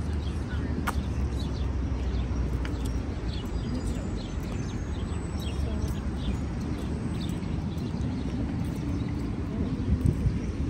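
City park ambience: a steady low rumble of street traffic, with small birds chirping and footsteps on the paved path.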